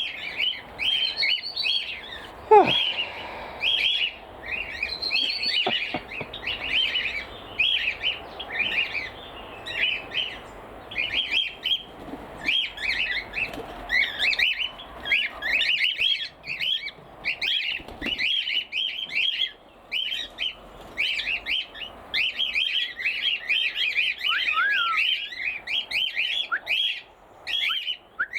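Several cockatiels squawking loudly and without pause, short shrill calls repeating several times a second. The keeper puts the outburst down to a tui outside mimicking cockatiel calls.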